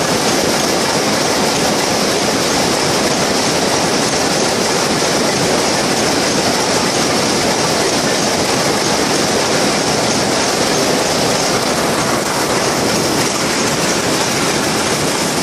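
Shuttleless weaving looms running: a loud, steady, dense mechanical clatter.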